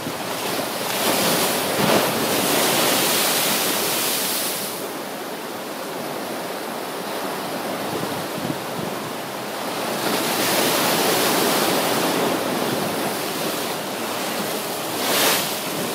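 Rough surf whipped up by an approaching typhoon, with strong wind. The noise of the water swells and falls twice as big waves break and wash in.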